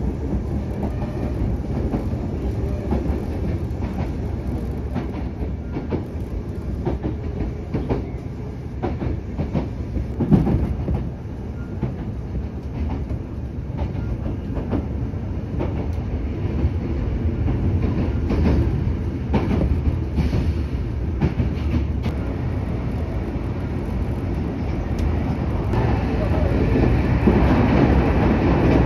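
Kintetsu electric train running, heard from inside the car: a steady low rumble with the wheels clicking over rail joints. It grows louder near the end as the train crosses onto a river bridge.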